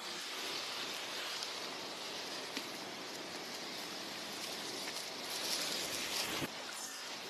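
Steady rushing noise of strong wind and choppy water at a lakeshore, with a faint click or two.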